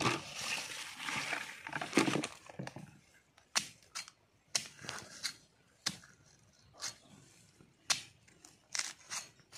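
A short-handled digging tool chopping into soil and the base of a bamboo shoot to cut it free. A couple of seconds of rustling and scraping in dry leaf litter come first, then sharp strikes about once a second.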